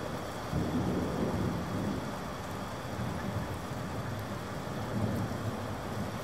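Steady rain with low rumbling thunder that rolls in about half a second in and swells again near the end.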